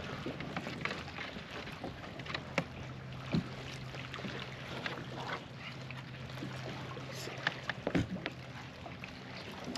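Scattered small clicks and knocks from a sheepshead being handled in a landing net aboard a kayak, with two sharper knocks about three and a half and eight seconds in, over a steady low hum.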